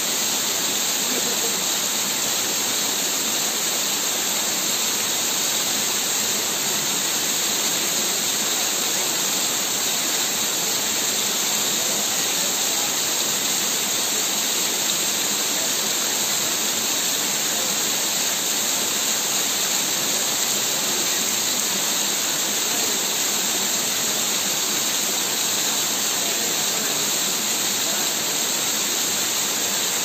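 Waterfall pouring over a rock face onto rock and into a shallow pool: a steady, even noise of falling water.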